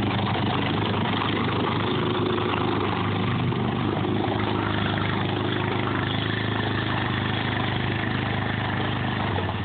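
Honda ATV engine running steadily at low revs while the four-wheeler wades through deep muddy water.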